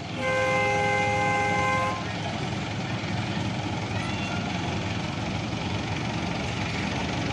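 The miniature joy train's horn sounds one steady two-note blast lasting about two seconds. A steady engine rumble follows.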